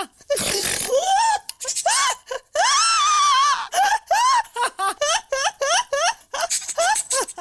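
A woman laughing hard in loud, high-pitched bursts, with a gasping breath near the start, one long drawn-out cry about three seconds in, then a quick run of short laughs.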